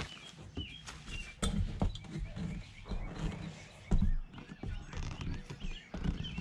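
Footsteps and thumps as someone climbs the rear ladder onto the roof of a travel trailer, the loudest thump about four seconds in, with birds chirping.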